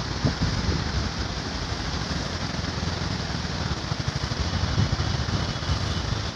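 Steady rush of flood water pouring through open barrage gates, with wind buffeting the microphone in gusts.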